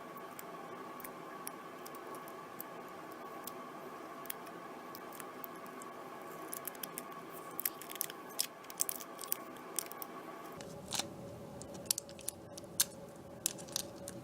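Scattered sharp crackles and clicks of the outer wrapper being peeled off a zinc-carbon battery, sparse at first and coming thick and fast from about halfway in, over a steady background hum.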